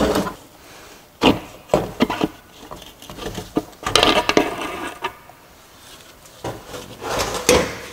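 Aluminum case halves and internals of a Borg-Warner 1356 transfer case being pulled apart by hand: irregular metal knocks, scrapes and clinks, with a denser clatter about four seconds in as the rear half comes off the chain.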